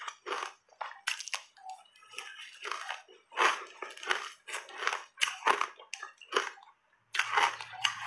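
Close-miked crunching of shaved ice coated in matcha powder, chewed in big bites. The crunches come in an irregular run, pause briefly near the end, then resume.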